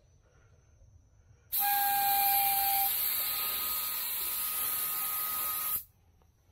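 Harbor Freight gravity-feed spray gun spraying single-stage black paint: a loud, steady hiss of air and paint, with a whistle over its first second or so. It starts about a second and a half in and cuts off suddenly about four seconds later when the trigger is released.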